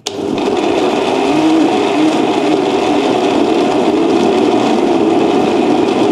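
Countertop blender switched on, its motor starting abruptly and running steadily at speed as it purées chillies, calamansi limes and water into sambal paste.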